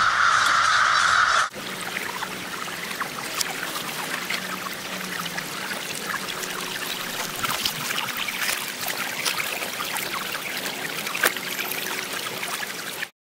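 A large flock of crows cawing together, cut off abruptly about one and a half seconds in by a shallow stream trickling and babbling over pebbles and stones, which runs steadily until a sudden stop at the very end.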